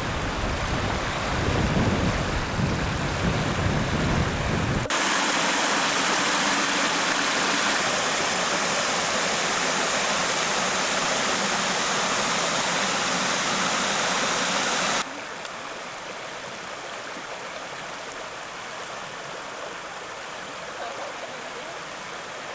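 Steady rush of a stream, changing abruptly to a louder, brighter rush about five seconds in and to a quieter one about fifteen seconds in.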